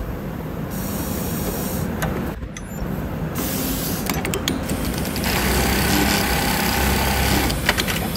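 Hikari automatic elastic-band sewing machine running a sewing cycle: the sewing head stitching, with hissing air from its pneumatic cylinders about a second in and again, longer and louder, from about five to seven and a half seconds in. Clusters of sharp mechanical clicks come about four seconds in and near the end.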